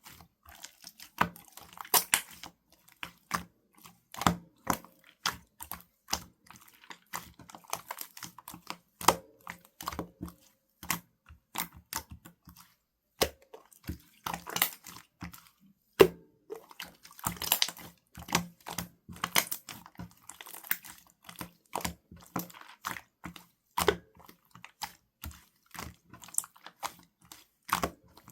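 Runny, raw-egg-textured slime being squeezed and worked by hand, making irregular wet clicks, pops and squelches, several a second.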